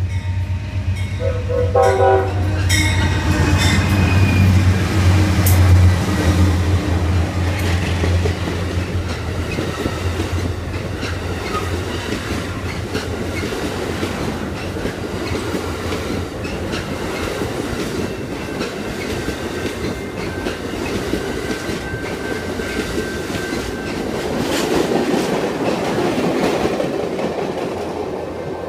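Amtrak passenger train passing at speed. The diesel locomotives' engines drone loudly for the first several seconds, with a short horn sound about two seconds in. Then comes the steady rush and clickety-clack of the double-deck Superliner cars' wheels over the rails, swelling again near the end before fading as the last car pulls away.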